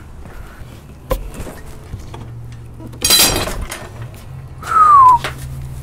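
A Harbor Freight 3/4-to-1/2-inch socket reducer shears off under a 40-inch breaker bar while it is loosening a rusted, staked axle nut. There is a sharp snap about a second in, then a loud ringing metallic clatter about three seconds in as the steel bar falls onto the concrete floor. A short falling tone follows near the end.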